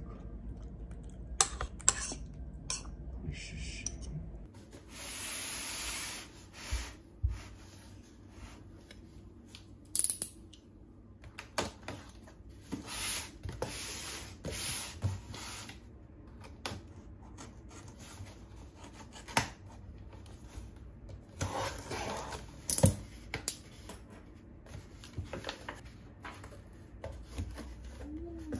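Metal spoon and fork clinking against a ceramic plate for the first few seconds. Then a cardboard shipping box is slid, rubbed and handled, with scrapes, rustles and occasional knocks as its flaps are opened.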